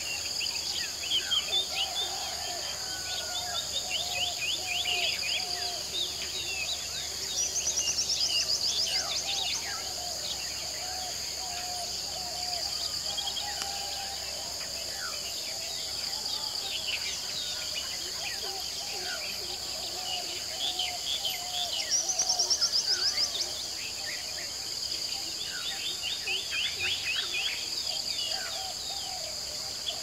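Lake ambience: crickets keep up a steady high-pitched drone while frogs call over and over in a lower voice and birds chirp throughout. Twice, about eight seconds in and again past twenty seconds, a louder burst of rapid trilling stands out.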